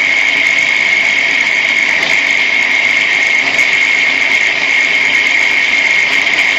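Angle grinder running steadily with a high whine, its disc grinding metal.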